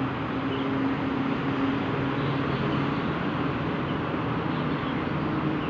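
Steady low engine hum with traffic noise, even throughout, with a few faint high chirps over it.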